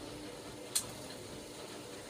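Hoover Logic washing machine running through a rinse stage of a cotton 60 cycle: a steady low hum, with one short sharp click about three-quarters of a second in.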